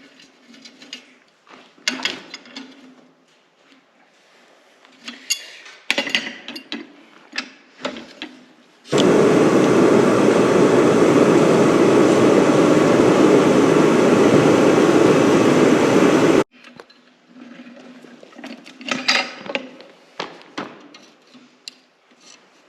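Light clinks and knocks of metal tools and steel rod being handled. In the middle they give way to about seven seconds of loud, steady rushing noise from the forge, which starts and stops abruptly.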